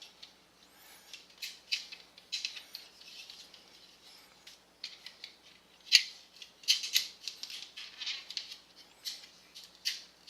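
Plastic Transformers action figure being handled and transformed: parts clicking, snapping into place and scraping against each other in irregular bursts, the sharpest click about six seconds in.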